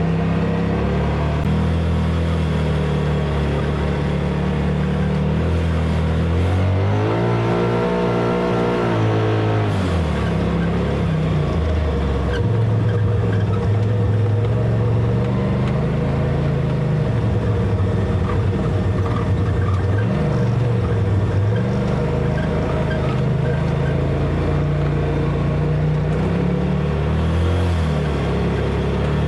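ATV engine running as it drives over sand, its pitch climbing about seven seconds in, holding, then dropping back about three seconds later, and rising and falling with the throttle after that.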